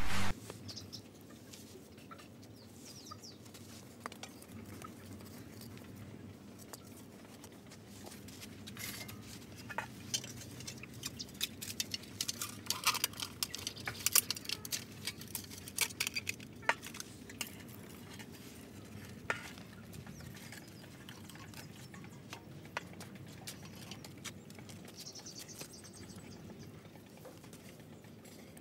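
Small clay bricks, a trowel and a metal sheet being handled in mud: scraping, tapping and clinking, with a busy run of sharp clicks in the middle and quieter scrapes of mud around it.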